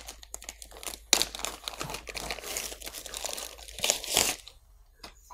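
Clear plastic bag crinkling as a remote control is pulled out of it: irregular crackling and rustling, loudest about a second in and again near four seconds, dying away near the end.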